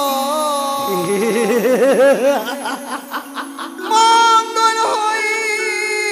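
Bengali Manasa gan folk music: a melody line with a fast wavering pitch, then steadier held notes from about four seconds in.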